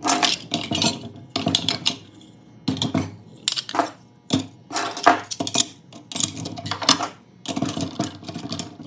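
Pieces of scrap aluminum clinking and clattering against metal in repeated short bursts, as handfuls are dropped and shifted.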